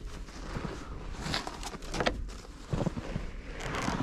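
Footsteps crunching in fresh snow, about four uneven steps.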